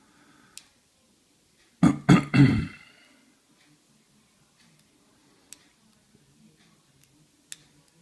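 A man clears his throat loudly in three quick bursts about two seconds in. Otherwise only a few light, sharp clicks from a pick and tension wrench working the pins of a small brass padlock.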